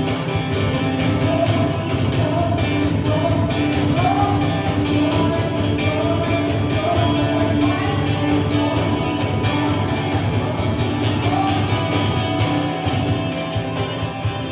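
Band music with guitar and a steady cymbal beat, under a singing voice carrying a gliding melody.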